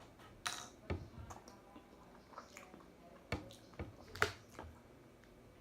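Eating noises: a handful of short, sharp clicks and smacks, two about half a second apart near the start and three more a few seconds later.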